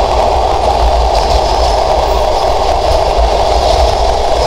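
Sundarban Express passenger train running at speed, heard from aboard: a loud, steady rumble and rush of wheels on the rails, with no distinct clickety-clack beat.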